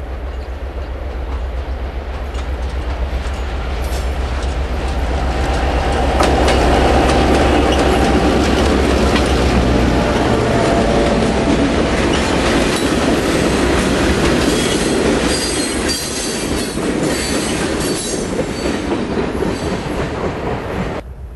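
Diesel locomotives of a freight train approaching and passing close by, their engines throbbing low, loudest about six to ten seconds in. Boxcars then roll past with clattering wheels and some high wheel squeal, until the sound cuts off just before the end.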